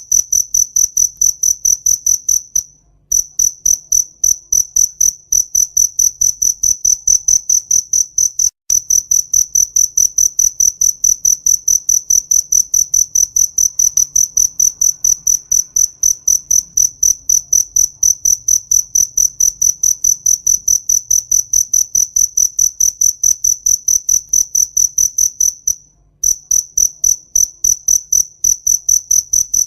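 Cricket chirping in a fast, even train of high-pitched pulses, breaking off briefly a few times before resuming.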